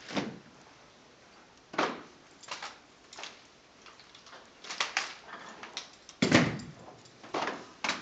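A Sea Cadet drill team's rifle slaps and heel stomps on a hard floor: sharp claps and thumps at irregular intervals, the loudest about six seconds in.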